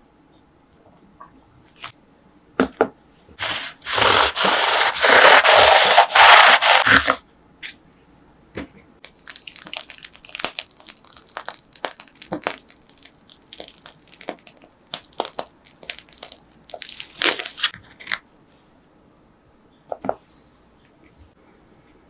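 A crisp baked choux puff shell crackling and crunching as it is pulled apart by hand, loud, for about three seconds. Then whipped cream hissing out of a squeeze-type piping bag, with small crinkles of the plastic, for about nine seconds, and a few light taps near the end.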